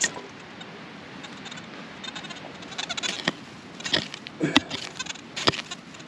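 Hand digger chopping and scraping into grassy, stony soil to dig out a strong metal detector target, with a handful of short, sharp strikes in the second half.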